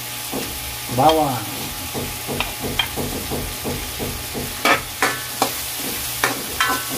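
Pork frying in a wok with a steady sizzle while a metal ladle taps and scrapes chopped garlic off a plate into the pan and stirs. There are many quick clicks, with several louder ringing clanks of the ladle on the wok in the second half.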